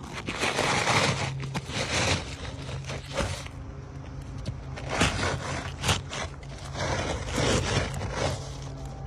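Hand tool scraping and prying at asphalt roof shingles in repeated rough strokes, with a few sharp clicks, as a shingle is worked loose or set in place.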